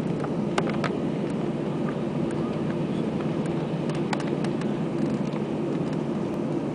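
Airbus A320 cabin noise while taxiing: a steady engine hum and rumble at a constant level, with scattered light clicks and rattles.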